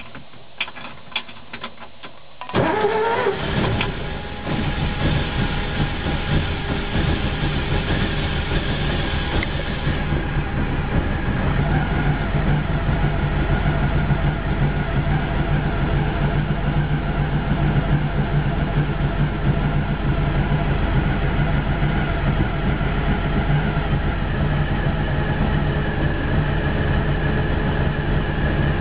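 VW bus engine, running on Megasquirt MS-II fuel injection with EDIS ignition, is started. A few sharp clicks come first. About two and a half seconds in it cranks and catches, rising in pitch, then settles into a steady idle.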